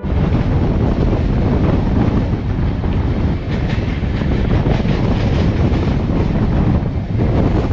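Passenger train running at speed: a steady, loud rumble of wheels on the track, with wind buffeting the microphone.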